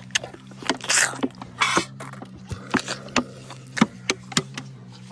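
Rhino calf suckling on a milk bottle: irregular sharp smacking clicks, with two breathy rushes of air about one and a half seconds apart early on, over a steady low hum.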